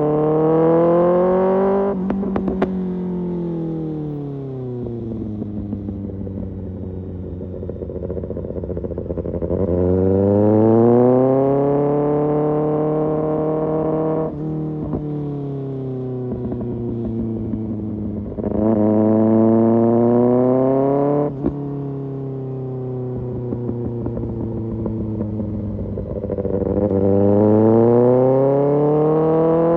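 Kawasaki ZX-6R inline-four with an Arrow Pro Race exhaust, ridden hard. The engine note climbs in pitch four times, each pull cut off sharply, and the pitch falls slowly on the overrun between pulls, with sharp cracks from the exhaust as the throttle closes.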